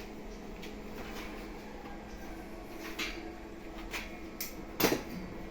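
A few scattered knocks and clicks, the loudest a quick double knock about five seconds in, over a steady low hum.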